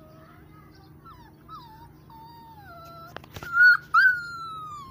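Puppy whining: several thin, wavering whimpers, then two loud, high-pitched cries in the last second and a half, the second drawn out and slowly falling.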